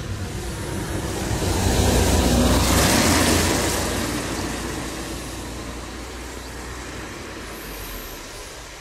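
A vehicle passing on a nearby road: tyre and engine noise with a low rumble that swells to a peak about three seconds in, then slowly fades into a steady background of traffic.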